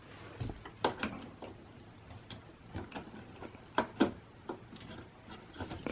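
Sharp plastic clicks and small knocks as a DDR3 memory module is pressed into a desktop motherboard's DIMM slot; the slot's retention latches snap shut, the clicks that show the module is seated properly.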